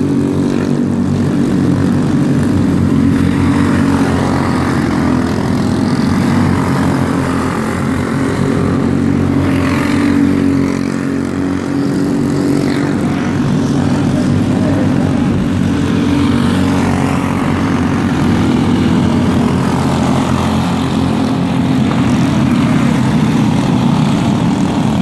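Engines of microstock racing karts running at race speed on the track, a steady, loud engine drone.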